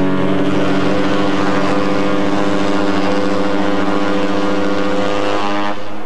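The SS Oceanic's ship horn sounding one long, steady blast.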